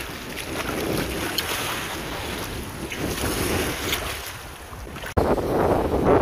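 Wind buffeting the microphone outdoors, over a steady rush of noise, perhaps water. About five seconds in the sound cuts abruptly, and after the cut the wind noise is louder.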